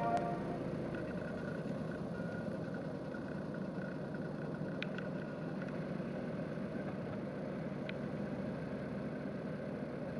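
Toyota Raize's 1.0-litre turbocharged three-cylinder engine idling steadily just after start-up, heard from inside the cabin, with a few faint ticks about halfway through.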